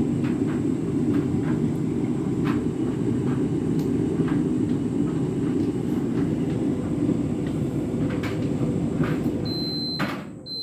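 Tumble dryer running steadily with scattered light knocks from the tumbling drum; near the end it beeps and the motor cuts out and winds down, signalling the end of its drying cycle.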